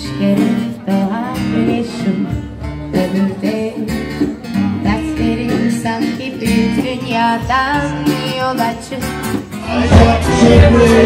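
Live band music: acoustic guitar strumming with a voice singing. About ten seconds in it grows louder and fuller.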